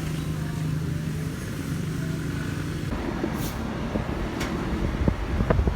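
A steady low drone of a running motor vehicle; about three seconds in it turns into broader rumbling noise with a few sharp clicks near the end.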